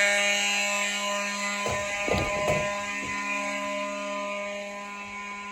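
Fire alarm horns sounding a steady, unbroken buzzy tone: a continuous signal, not temporal or march-time pulses, because the pull-station zone is in alarm. A few dull thumps come about two seconds in.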